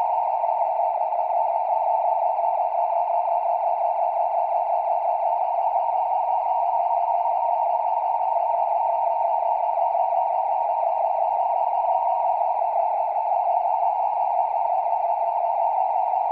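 Steady, unchanging hissing drone from a dark ambient Halloween music track, with no beat or melody.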